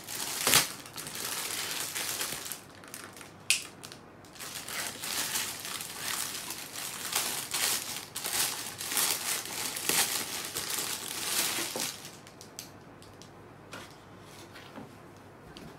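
Clear plastic packaging bag crinkling and rustling as it is handled and pulled open to free a folded T-shirt, with a sharp snap about half a second in. The crinkling fades to faint handling in the last few seconds.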